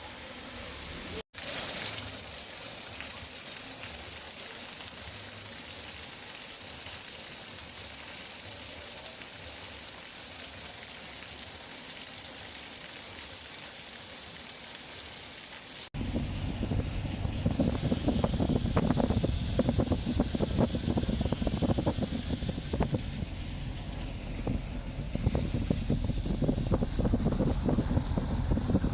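Heavy rain falling, a steady hiss. After an edit about halfway through it turns louder and rougher, with wind buffeting the microphone.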